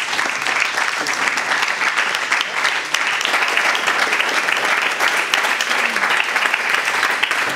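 An audience applauding, a dense, steady clapping that holds at one level.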